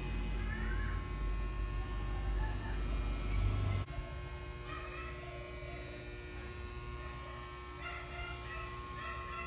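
Steady low background hum with a few faint, short chirps over it. The hum drops suddenly about four seconds in.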